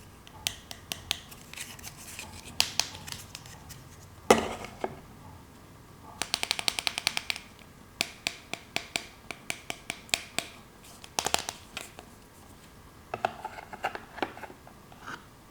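Small plastic toy pieces being handled and set down: scattered sharp clicks and taps, with a quick run of rapid clicks lasting about a second near the middle.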